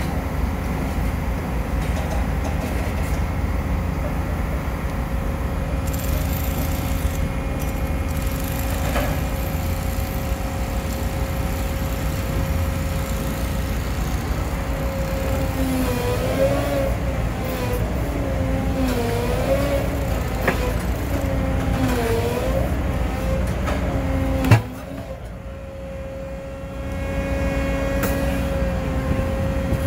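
Hydraulic pile cropper and the machine powering it running under load: a low rumble with a steady whine that wavers up and down in pitch as the four rams squeeze a 630 mm concrete pile. About 24 seconds in comes one sharp crack as the pile head breaks off, and the low rumble drops away after it.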